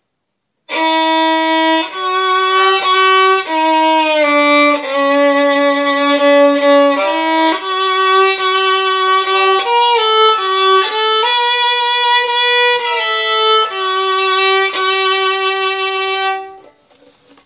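A violin played with the bow: a slow melody of held single notes, roughly one a second, some with a light vibrato. It starts about a second in and stops shortly before the end.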